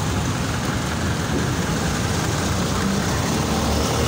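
Street traffic: motor vehicle engines running close by, a steady low rumble.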